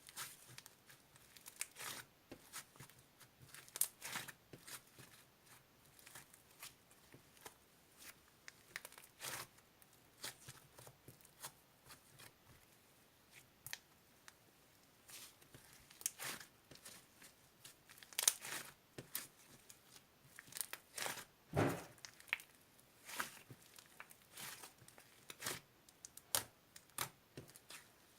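Handling noise: irregular short crinkles and tearing sounds, with a longer, louder one about twenty-one seconds in.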